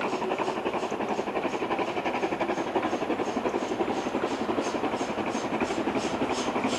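Steam locomotive working hard as it approaches, its exhaust beating in an even rhythm of about four chuffs a second.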